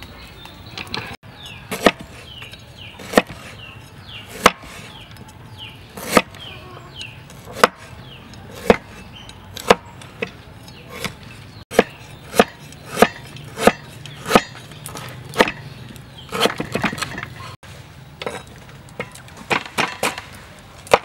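A cleaver knocking down on a wooden cutting board as garlic and ginger are sliced, single sharp chops about once a second, then a quicker run of chops near the end.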